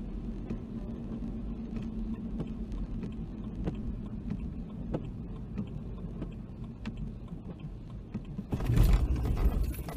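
Car driving on a wet road in heavy rain, heard from inside the cabin: a steady rumble of road and engine with light scattered ticks. About eight and a half seconds in, a louder burst of rumble and hiss lasts about a second and a half.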